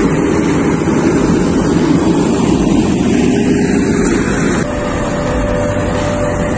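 Fendt Vario 724 tractor running close by as it pulls a five-furrow Kverneland plough through the soil. After a cut about four and a half seconds in, a Ropa Tiger 6S sugar beet harvester is heard working, a little quieter, with a steady tone over its engine.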